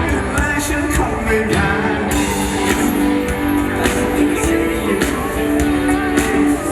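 Live band music through a PA system: a pop-rock band playing with drums and guitar, with held notes and some singing.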